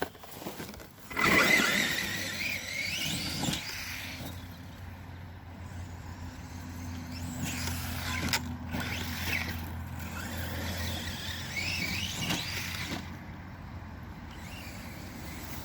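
Electric motor of a Redcat Shredder RC monster truck whining, rising in pitch as it accelerates in bursts: about a second in, around eight seconds and again near twelve seconds. A low steady hum sits underneath in the middle stretch.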